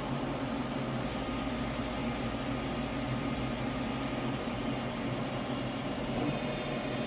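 Doosan VM5400 vertical machining center running: a steady machine hum with several steady tones held throughout.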